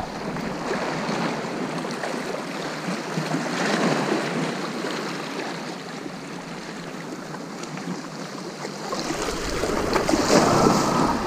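Sea water washing at the shoreline, with wind buffeting the microphone. The water swells briefly about four seconds in, and a louder rush of splashing water comes near the end.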